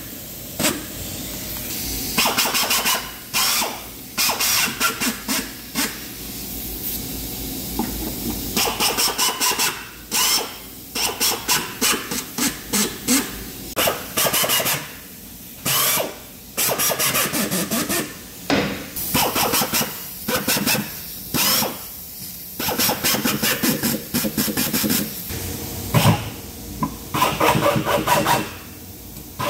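Handheld drill driving screws into 18 mm birch plywood, in many short runs that start and stop.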